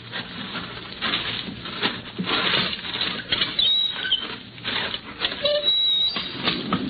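Radio-drama sound effect of footsteps walking, an irregular patter of steps, with two short high chirps, one about halfway through and one near the end.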